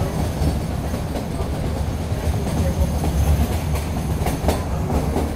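Passenger train coach running along the track, heard from its open window: a steady low rumble of wheels on rails, with a few sharp clicks of the wheels over rail joints about four seconds in.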